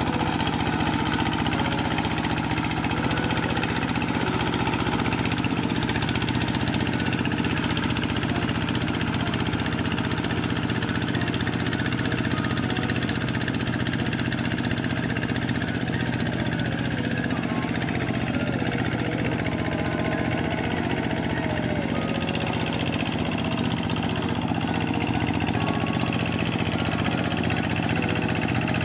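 A two-wheel hand tractor's single-cylinder diesel engine running steadily as the tractor ploughs a flooded rice paddy.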